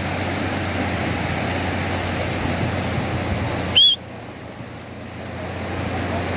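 Steady wind rumble on the microphone and surf washing on the beach. About four seconds in, a short, loud high chirp rises and falls; then the background drops suddenly and slowly swells back.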